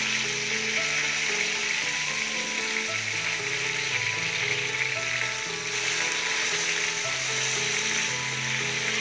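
Rui (rohu) fish steaks sizzling steadily as they shallow-fry in hot oil in a karahi, while a spatula turns them over.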